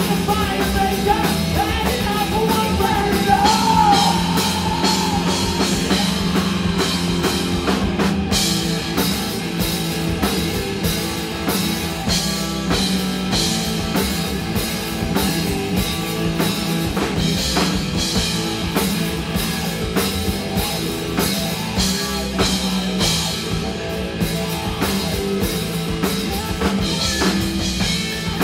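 Live rock band playing loud and fast, with electric guitars over a steady, driving drum-kit beat. The section is mostly instrumental, with no words heard.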